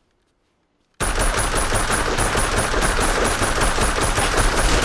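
About a second of near silence, then an assault rifle opens up in a long, continuous automatic burst of rapid, closely spaced shots.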